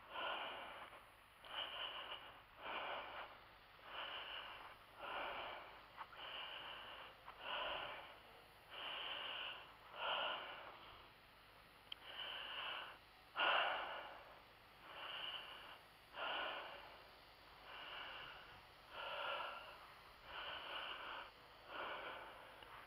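A man breathing hard and fast, about one breath every second or so, catching his breath after carrying a loaded bee nuc box a long way by hand; one breath about halfway through is louder than the rest.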